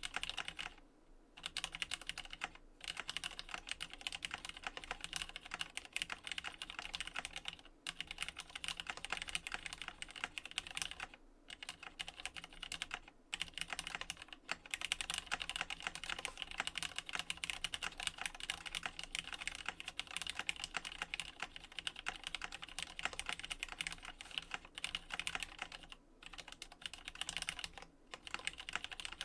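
Fast continuous typing on a JER-A06 custom mechanical keyboard with lubed, retooled Cherry MX Black linear switches, a plateless top-mounted PCB and GMK keycaps. Rapid clacking keystrokes, broken by a few brief pauses.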